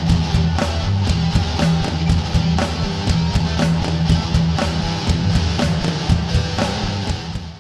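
Rock interlude music with guitar and a steady drum beat, fading out near the end.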